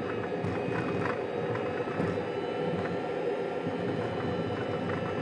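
Jet aircraft's engine running with a steady rushing noise and a faint high whine, heard from inside the cockpit as the jet rolls out on the runway after landing.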